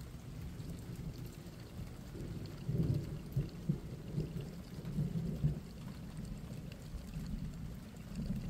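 Rain falling on the garden, with an uneven low rumble that swells about three seconds in and again around five seconds.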